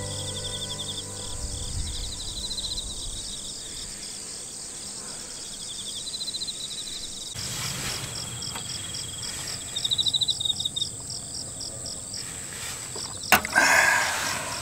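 Field insects chirping in repeated short rapid trills over a steady high-pitched insect drone. A sharp click comes near the end.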